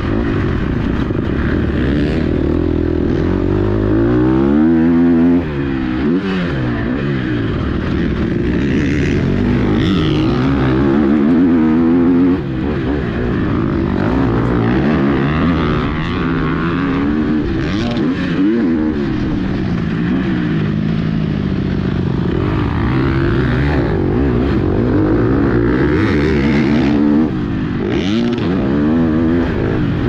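KTM SX-F four-stroke motocross engine heard onboard, ridden hard: the revs climb and fall again and again through the gears. Three times the throttle snaps shut and the sound drops suddenly.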